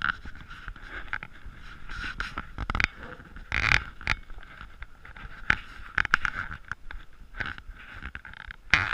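Handling noise from a chest-mounted action camera as its wearer walks: irregular rustling of clothing and knocks against the camera.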